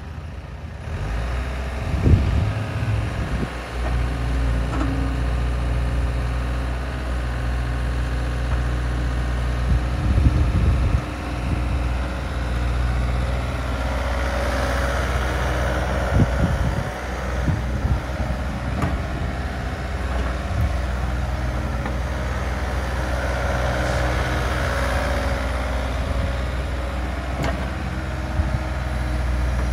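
Yanmar VIO80 midi-excavator's diesel engine running steadily while the machine slews and works its boom, arm and bucket, the sound swelling twice under hydraulic load. A few short knocks come from the working machine.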